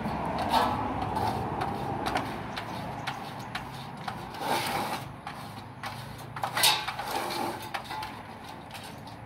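Dogs rummaging among loose wooden boards and poles, giving irregular light knocks and scrapes of wood, with a few louder clatters, over a steady low background rumble.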